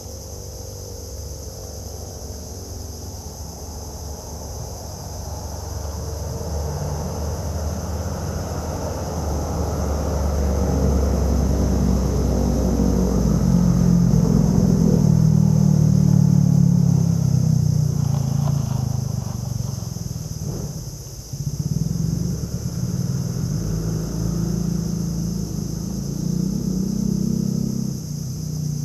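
An engine's low rumble, swelling to its loudest about halfway through, dropping off briefly about three quarters in, then running on.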